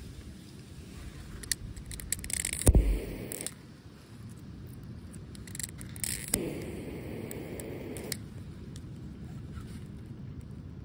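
Handling rustle and a sharp knock about three seconds in, then a lighter held to solid-fuel tablets in a small metal windscreen stove: a brief hiss of about two seconds starting around six seconds in.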